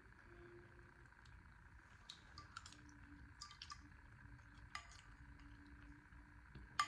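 Faint, scattered clinks of a utensil against a soup bowl while eating pho, with a slightly louder clink near the end.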